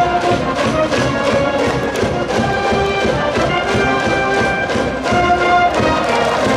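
Brass band cheering from the stands, playing a held brass melody over a steady drum beat.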